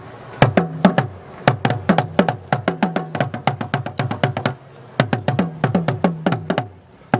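A pair of Akan atumpan talking drums beaten with curved sticks in quick, irregular strokes, each stroke ringing briefly with a slight drop in pitch. The playing breaks off briefly about four and a half seconds in and again near the end.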